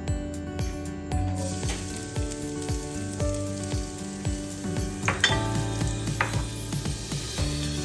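Chopped garlic sizzling as it hits hot oil in a stainless steel frying pan, starting about a second and a half in. Two sharp clicks come a little past the middle.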